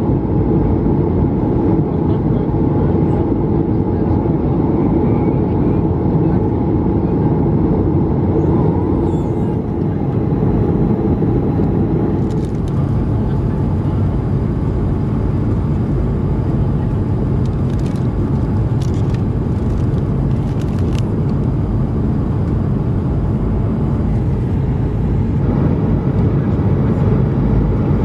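Steady, low rushing cabin noise of an Airbus A220-300 in cruise flight: airflow and engine noise from its geared turbofans. Its tone shifts slightly about halfway through.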